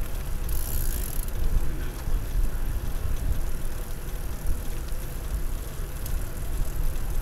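Wind buffeting the microphone of a handlebar-mounted camera on a moving bicycle: an uneven low rumble, with faint tyre noise on the asphalt trail.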